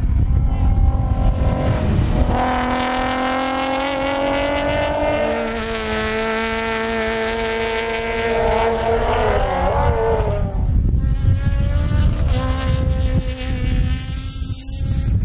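Racing car engine running hard on the circuit and passing by: it shifts up about a third of the way in, and its pitch falls as it goes past. Another car's engine is heard near the end. Strong wind rumbles on the microphone throughout.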